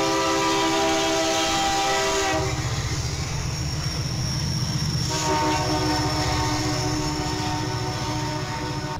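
BNSF diesel freight locomotive's multi-note air horn, the chord breaking off about two seconds in and sounding again as a long blast from about five seconds in. Under it runs the low rumble of the passing diesel engines and wheels.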